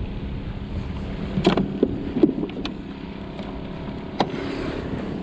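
Wind and water noise around a kayak with a low steady hum underneath, and a few sharp knocks and clatters, the loudest about two seconds in.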